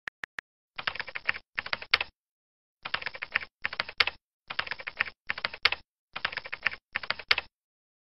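Typing on a computer keyboard: about eight short runs of rapid keystrokes, coming in pairs with brief pauses between. Just before the typing, the tail of a text-message alert plays as three short high blips.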